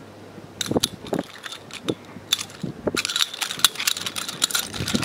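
Sharp irregular clicks and knocks of two khukuri knives being twirled and caught in the hands, sparse at first and coming quick and dense from about three seconds in.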